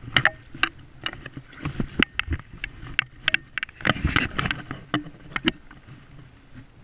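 River water splashing and sloshing in the shallows, with irregular knocks and rustles of handling close to the camera. These come thick through the first five seconds and then thin out.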